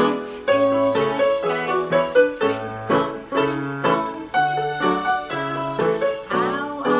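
Solo piano playing a gentle melody over a moving bass line, new notes struck about twice a second.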